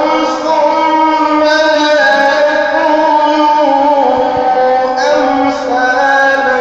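A man's high voice reciting the Quran in a long, drawn-out melodic chant, holding notes that step up and down in pitch, with no added sound effects.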